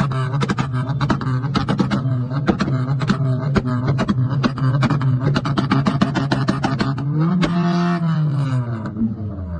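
Modified Suzuki Cultus hatchback with a large exhaust tip, held at steady high revs while its exhaust pops and crackles in a rapid train of sharp bangs as it spits flame. Near the end the revs rise briefly and then drop back.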